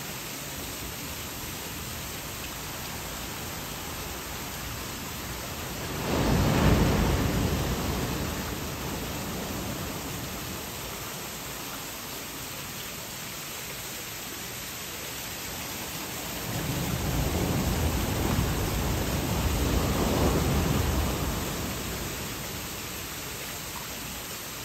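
Ocean surf: a steady wash of waves, with a wave breaking on the beach about a quarter of the way through and fading away, then a longer surge of breaking surf near the end.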